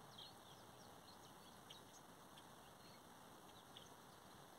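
Faint, scattered bird chirps, many short calls at irregular intervals, over a steady low hiss.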